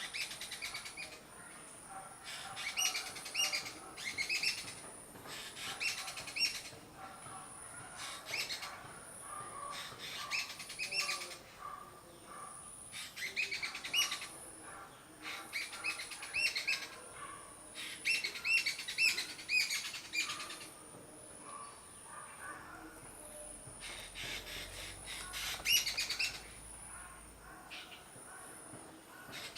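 A bird holding an insect in its bill calls in repeated bouts of rapid, high chirps, each bout lasting a second or two and coming every few seconds.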